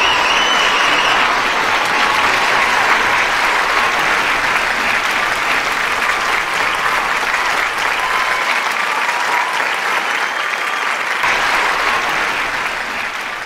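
Audience applauding steadily, with a few scattered shouts from the crowd. The clapping tapers off near the end.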